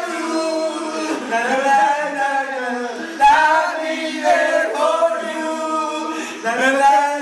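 A small group of young people singing together without accompaniment: held notes in several phrases, each broken off by a short pause for breath.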